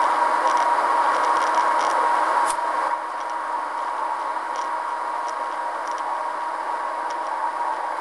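Steady hiss with a faint steady tone through it and a few light clicks, one sharp click about two and a half seconds in; the hiss drops a little just after it.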